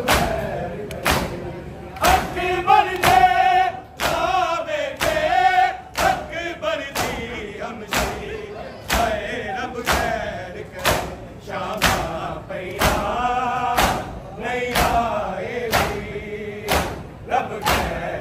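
A crowd of men beating their bare chests with open palms in unison (matam), sharp slaps about twice a second, with a group of male voices chanting a mourning lament over the beat.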